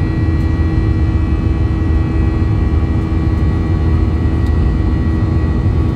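Cabin noise inside a Boeing 737-800 climbing out after takeoff: its CFM56-7B turbofan engines and the airflow make a loud, steady deep rumble with a few steady tones running over it.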